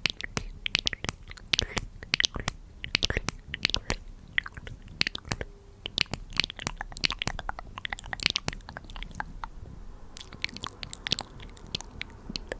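Close-miked ASMR trigger sounds: a dense run of crisp, irregular clicks and crackles, several a second.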